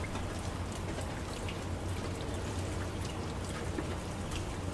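Steady background hiss with a low hum and a few faint scattered ticks, like light patter; no distinct event stands out.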